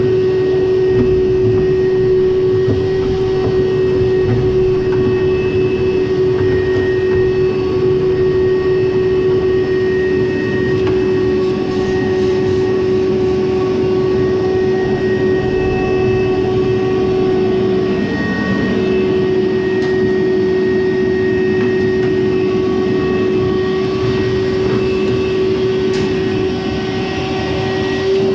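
Frigidaire clothes dryer running: a steady hum with a rumbling noise beneath it, unchanging throughout.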